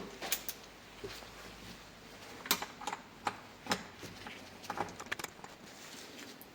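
Scattered sharp clicks and taps of hand tools on metal bicycle parts while a bolt is worked loose, about nine in all at uneven intervals, most of them in the middle of the stretch.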